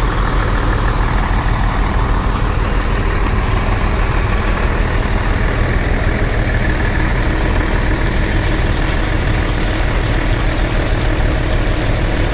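Diesel engine of an older Mercedes-Benz concrete pump truck running steadily while the truck works a pour.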